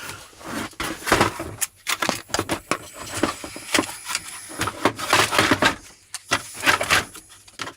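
Tools and toolbox parts clattering as a toolbox is packed and put back together: a run of irregular clicks, knocks and rattles.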